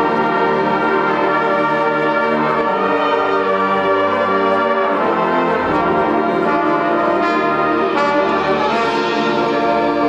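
Marching band brass section playing loud, held chords that shift a few times, with trumpets, trombones and horns sounding together.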